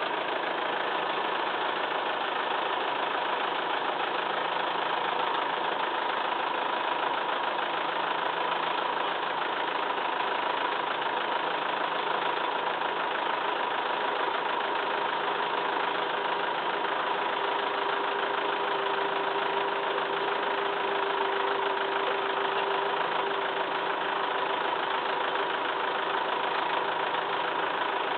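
Massey Ferguson 2635 tractor's diesel engine running steadily, with an added steady tone coming in for several seconds past the middle.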